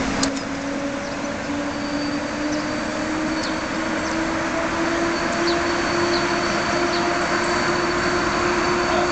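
EP07 electric locomotive with its passenger train rolling slowly in along the platform: steady running noise with a low hum that rises slowly in pitch, and a faint high steady tone above it.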